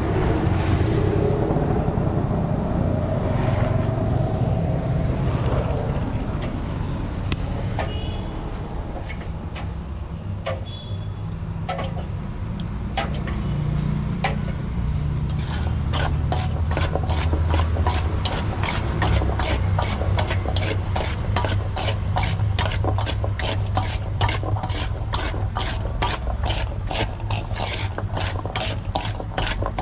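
A metal spoon scraping and clinking against a steel bowl as chickpea sundal is stirred. The strokes come quickly, about three a second, from about halfway through. A low rumble of road traffic runs underneath.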